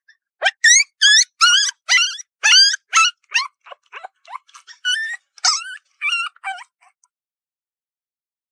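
A puppy whimpering and yipping: a run of short, high-pitched, wavering calls, about two a second, dying away around seven seconds in.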